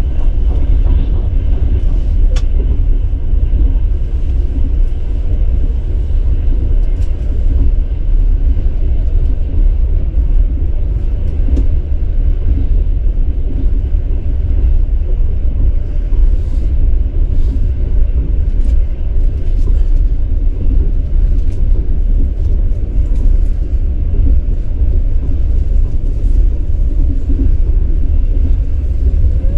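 Steady low rumble of a moving vehicle, with a few faint ticks.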